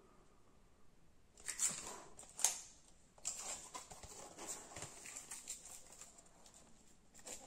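Plastic film and paper wrapping crinkling and rustling as they are handled and peeled from a freshly moulded composite glider wing. There are sharp crackles between about one and a half and two and a half seconds in, then a steadier run of small crinkles.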